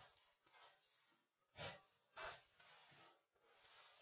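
Gloved hands smoothing wet mud plaster on a wall: faint rubbing, with two short swishes of a stroke across the surface about halfway through.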